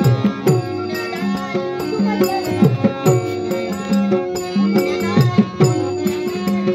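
Traditional Dashavatar stage accompaniment: a harmonium holding steady notes, a hand drum beating with bass strokes that slide down in pitch, and small hand cymbals clinking along with the beat.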